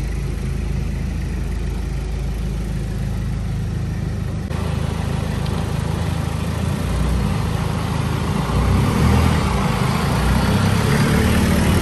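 Engine of an older sedan running at low speed close by, a steady low hum that grows louder from about seven seconds in.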